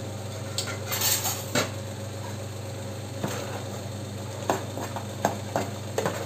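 A long metal spoon scraping and clinking against the side of a metal cooking pot as it spreads and pokes through par-boiled basmati rice layered for biryani. The clinks come irregularly, about eight in all, some in quick pairs.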